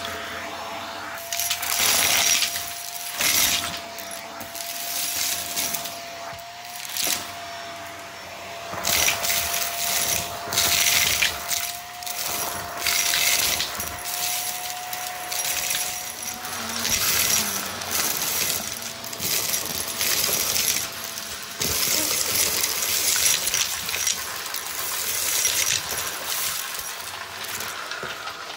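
Vacuum cleaner picking up test mess: hard bits of debris rattle and clink as they are sucked up in repeated surges, with a faint steady whine through the first half.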